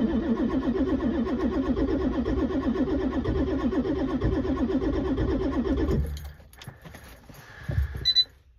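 Ford 7.3 L Powerstroke V8 turbodiesel being cranked by its starter in deep cold without catching: a steady rhythmic pulsing of the engine turning over that stops abruptly about six seconds in, followed by a few faint clicks. The engine is cold-soaked at −17 °F with no block heater, and its cranking is held back by cold-weakened batteries and thick 15W-40 oil.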